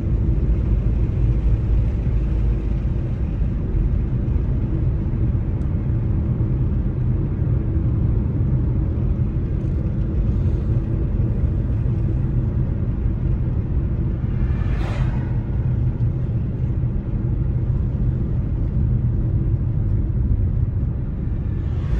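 Steady low road rumble of a car driving on a two-lane country road, tyre and engine noise heard from inside the car. About two-thirds of the way through, an oncoming vehicle passes with a brief whoosh, and another is just starting to pass at the very end.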